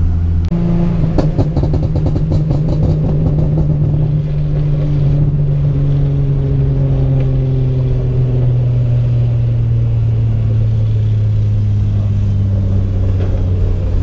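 Infiniti G37's 3.7-litre V6 and tuned exhaust, heard from inside the cabin. The engine note jumps up about half a second in, then slowly drops as the car eases off, with a run of exhaust crackles and pops over the next few seconds.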